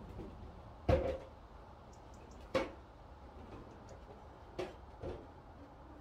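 A few sharp knocks: a loud one about a second in, single knocks at about two and a half and four and a half seconds, and a softer one just after five seconds. Faint short high chirps come near two seconds.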